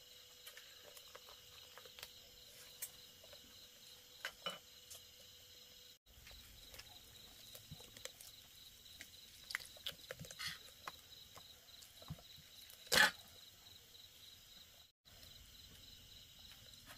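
Quiet meal sounds: small clicks and taps of bowls, chopsticks and hands pulling apart a boiled chicken, over a steady high chirring of night insects. A brief louder clatter comes about thirteen seconds in.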